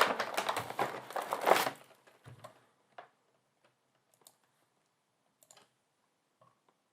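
A bag crinkling as it is handled for about a second and a half, then a few faint clicks.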